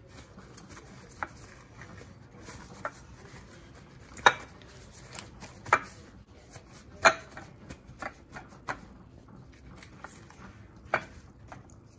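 Gloved hands patting halves of a raw salmon head dry with kitchen paper on a china plate: faint rustling broken by irregular sharp clicks and taps, the loudest about four and seven seconds in.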